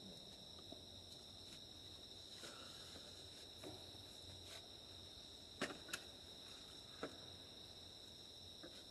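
Faint, steady insect chorus, a continuous high-pitched chirring. A few faint short clicks come a little past the middle.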